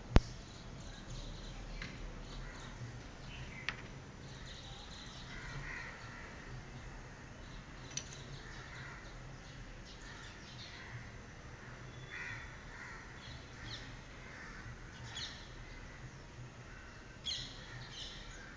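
Birds calling in the background: short calls every second or two over a steady low hum. A single sharp click comes just after the start, with a few fainter taps later.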